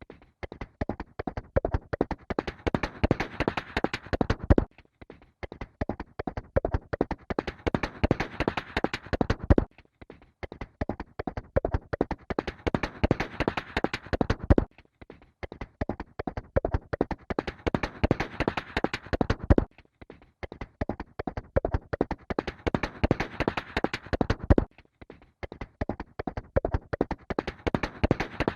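Horse hooves galloping in a fast, dense run of hoofbeats. The same five-second stretch of galloping repeats over and over as a loop, with a sudden break about every five seconds.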